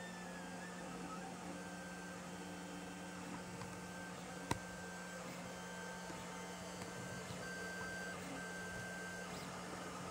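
Lulzbot TAZ 5 3D printer printing: its stepper motors sing in short steady tones that start and stop as the print head and bed move, over a steady low hum. There is a single sharp click about four and a half seconds in.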